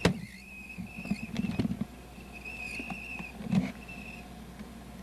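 RCA CC250 VHS camcorder squealing with a thin, high tone that comes and goes, which the owner suspects may be another bad belt. A few knocks are heard alongside, loudest near the start and about three and a half seconds in.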